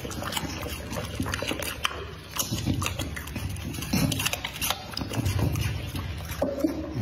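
A bully-breed dog chewing raw meat and smacking its lips, a run of quick wet clicks and slurps.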